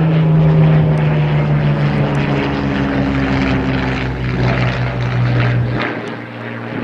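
Hawker Hurricane Mk XIIa's Merlin V12 engine running loud as the fighter passes overhead, its note falling steadily in pitch. The note drops lower and quieter near the end.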